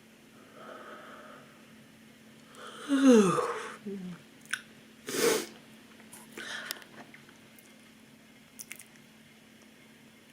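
A woman's tired yawn: a soft breath in, then a loud voiced yawn about three seconds in whose pitch falls steeply, followed by breathy exhales and a few small clicks.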